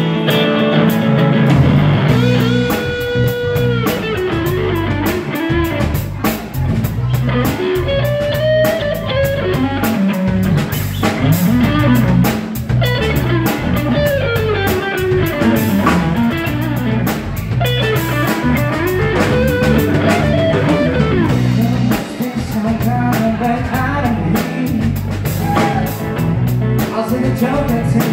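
Live blues-rock band: an electric guitar playing lead lines with bent notes over electric bass and a drum kit.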